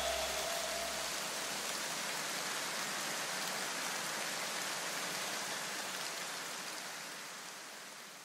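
A steady, even hiss like rain that slowly fades out, with a low rumble dying away in the first two seconds.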